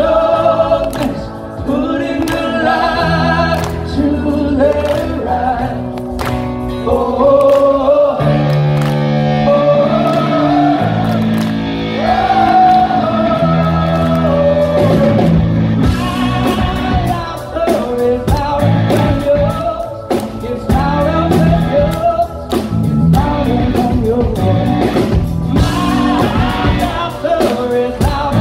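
A rock band playing live and loud, with electric guitar, bass and drums under a sung melody line.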